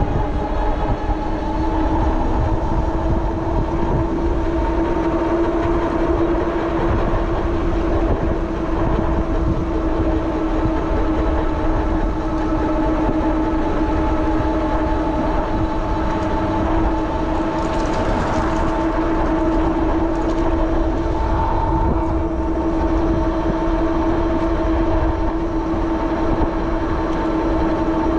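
Electric bike hub motor giving a steady whine under power while riding at a constant speed, over a low rumble of wind on the microphone. A brief hiss comes about two-thirds of the way through.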